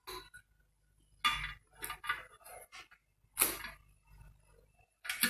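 Small plastic IV line parts, three-way stopcocks and caps, being handled and fitted together over a stainless steel tray: a handful of short clicks, clinks and light rattles with pauses between.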